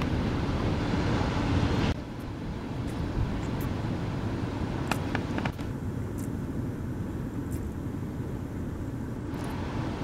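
Rumbling wind noise on the microphone mixed with the wash of breaking surf. It drops sharply about two seconds in, with a few faint clicks around the middle.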